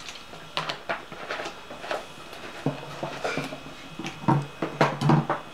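Plastic condiment bottles handled and set down on a tiled kitchen counter: a series of separate clicks and knocks, with a steady low hum coming in about halfway through.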